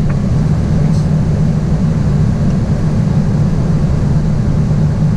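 Steady flight-deck noise of a jet airliner on final approach: a constant low drone of airflow and engines, with no change in level.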